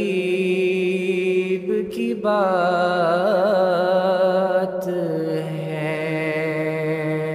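A young man's voice singing a naat, an Urdu devotional song, drawing out long held notes with a wavering ornament in the middle, over a steady low drone. The last note fades near the end.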